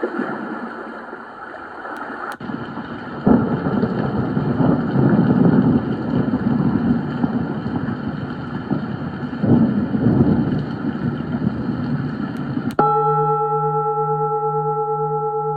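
A portable sound machine playing a rushing noise track that swells and ebbs, then, after a click near the end, switching to a steady ringing tone of several held pitches with a slowly pulsing low note.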